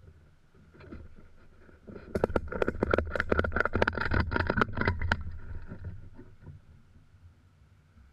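Ratchet tie-down strap being cranked tight: a fast run of ratchet clicks, about five a second, starting about two seconds in and lasting about three seconds.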